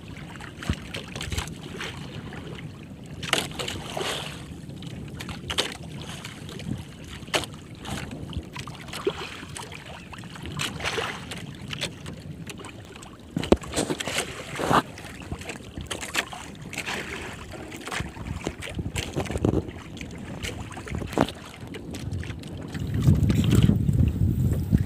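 Water slapping and lapping against a small outrigger boat at sea, with wind on the microphone and scattered sharp knocks and clicks. A louder low rumble comes in near the end.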